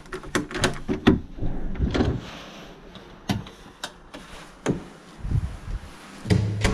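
A series of sharp knocks and clatters, several in quick succession at first and a few more spaced out later, then a low steady hum starting near the end.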